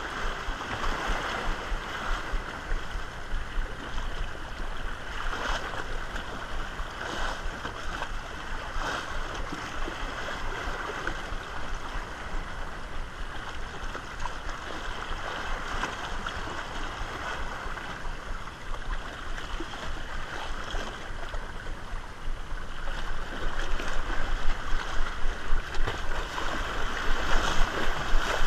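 Small sea waves lapping and splashing against shoreline rocks, a steady rushing wash with brief splashes, getting louder and more pulsing over the last few seconds.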